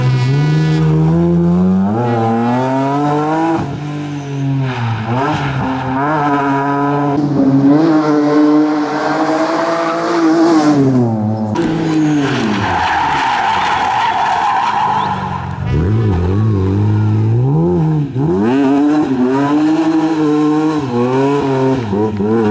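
BMW rally car engine revving hard, its pitch climbing and dropping again and again through gear changes and lifts. Tyres squeal for a couple of seconds a little past halfway.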